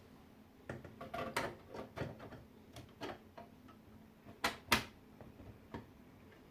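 Irregular clicks and light knocks of hardware being handled and fitted, likely inside a PC case while the sagging graphics card is propped up. Two sharper knocks come close together about four and a half seconds in.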